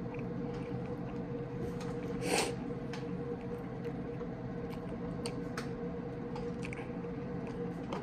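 A plastic squeeze bottle of ranch dressing squirting once, briefly, a little over two seconds in, over a steady low hum and a few faint clicks.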